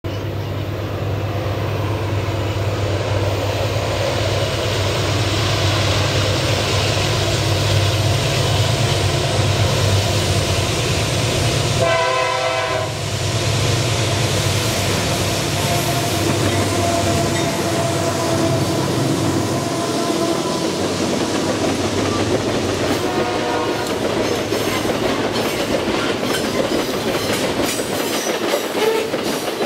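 Iron ore train passing: the diesel locomotive's engine drone builds as it approaches, and a short horn blast sounds about twelve seconds in. After that come the loaded ore wagons rolling by, with wheels clacking over the rail joints.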